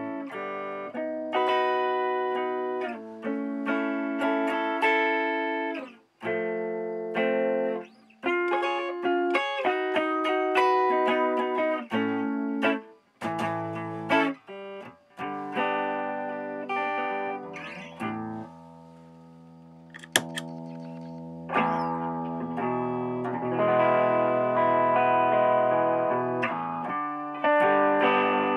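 Electric guitar played through a Keeley Compressor Mini compressor pedal: single notes and chords, each note sustaining evenly. About three quarters of the way in the tone grows louder and denser, and by the end an EHX Soul Food overdrive pedal is switched on as well.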